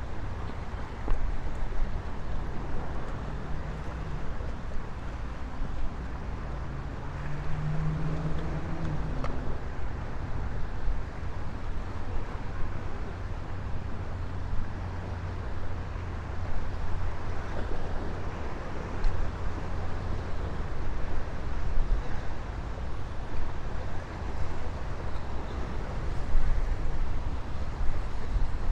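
Gusty wind rumbling on the microphone over a steady wash of traffic noise from the parkway that runs beside the shore path.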